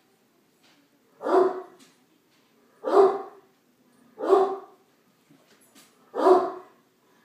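A dog barking four times, single loud barks one to two seconds apart.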